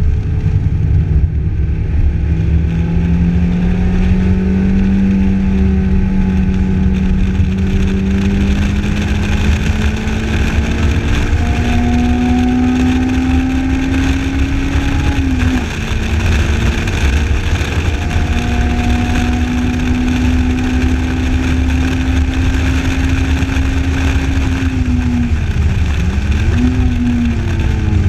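Lotus Elise engine pulling under load on track, heard from inside the open cockpit over heavy wind and road noise. Its pitch climbs slowly, drops sharply once about halfway through, climbs again, then dips and comes straight back up near the end.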